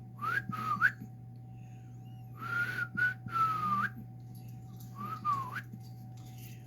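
A person whistling in three short groups of breathy, airy notes that slide up and down, with a weak, dry tone. The first group comes at the start, a longer run of notes about two and a half seconds in, and a pair about five seconds in.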